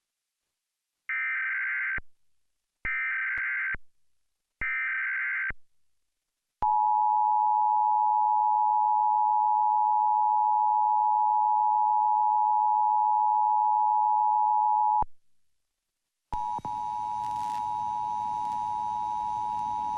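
Emergency Alert System test: three short bursts of SAME digital header data tones, then the two-tone EAS attention signal (853 and 960 Hz) held steady for about eight seconds. A second or so after it stops, a steady tone over hiss comes in.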